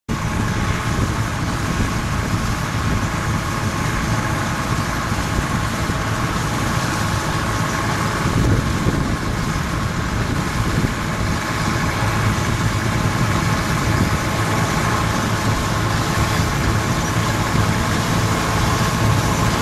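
Bizon Z056 combine harvester cutting wheat: its diesel engine and threshing machinery running steadily at working speed, a constant even drone.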